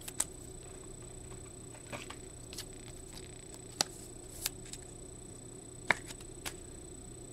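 Trading cards in hard plastic top loaders being handled and set down: about seven sharp clicks and taps, scattered irregularly over a faint steady hum.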